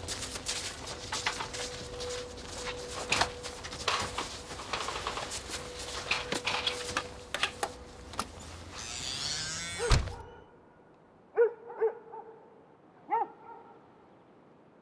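Clicks and rattles as a metal stretcher is loaded into a car, ending in one loud thump as the tailgate is slammed shut about ten seconds in. Then a dog barks three times, short and pitched.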